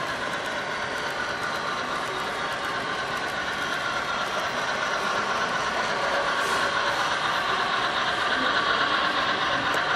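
HO scale model train running along the layout's track, a steady mechanical running noise that grows slowly louder as the freight cars pass close by.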